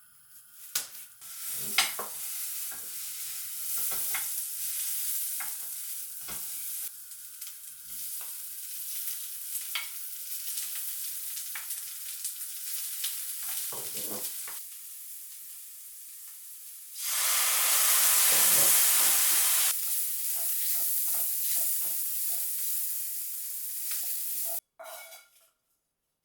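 Food sizzling as it fries in a pan, with knocks and scrapes of a stirring utensil. The sizzle swells louder for a few seconds about two-thirds of the way through, then cuts off abruptly near the end.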